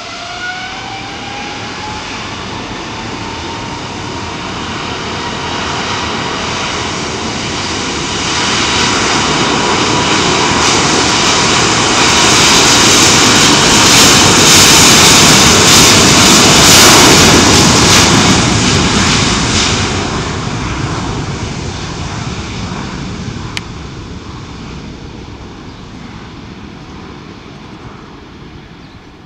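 Boeing 777-300ER's GE90 turbofans at takeoff thrust. A whine rises in pitch in the first seconds as the engines spool up, then levels off. The jet noise grows as the airliner accelerates down the runway, is loudest as it passes about halfway through, and fades as it moves away.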